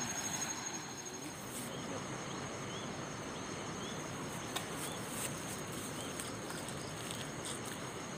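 Steady rush of a fast, flood-swollen river, with insects keeping up a high pulsing trill over it. A short rising chirp repeats about once a second, and there is a single sharp click about halfway through.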